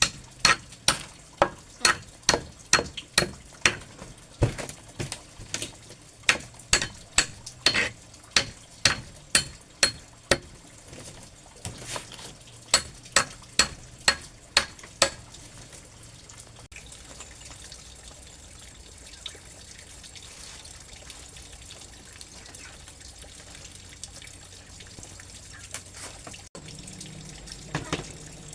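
A run of sharp knocks, about two a second, stops about fifteen seconds in and gives way to a steady trickle of running water.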